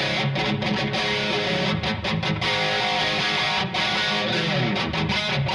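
Epiphone Flying V 1967 electric guitar played with a distorted, overdriven tone: picked chords and riffs with a few short breaks between phrases.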